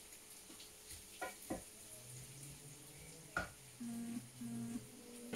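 Spoon stirring chicken filling in a frying pan, clinking against the pan a few times over a faint sizzle. Near the end, two short closed-mouth hums from a woman.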